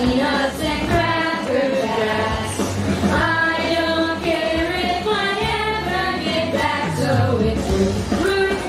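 A song from a stage musical: several voices singing together over a backing track with a steady bass line.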